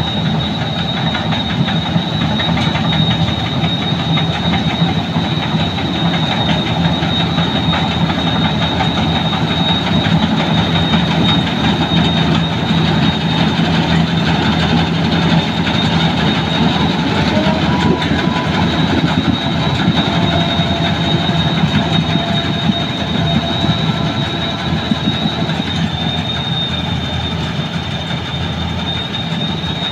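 New Holland 8060 combine harvester working through a rice crop: its diesel engine and threshing machinery run steadily under load with a constant high whine.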